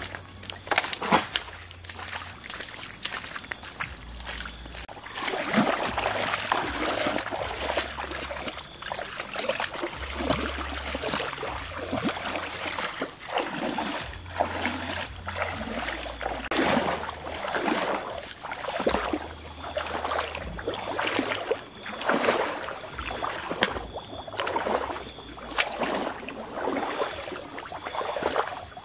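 A few footsteps on a muddy path at the start, then a person wading through shallow creek water, the water sloshing and splashing around the legs with each stride.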